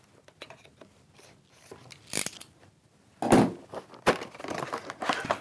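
Unboxing a small cardboard microphone box: light scrapes and clicks as the box is cut open with a hand tool, then louder rustling and crinkling of plastic packaging about three seconds in and again near the end as the contents are pulled out.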